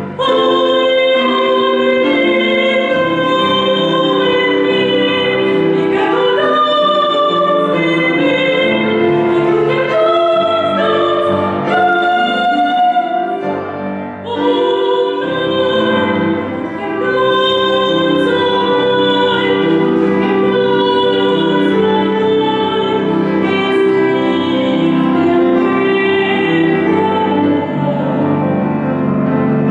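A woman singing solo in long, held notes with vibrato over an instrumental accompaniment, with short breaths between phrases.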